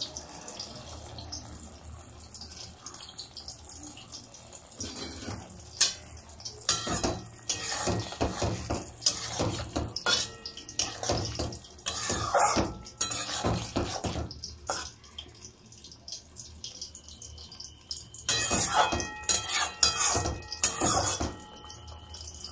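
Spatula scraping and clattering against a metal kadai as simmering fish in mustard gravy is stirred, in bursts from about five seconds in, over the bubbling of the gravy.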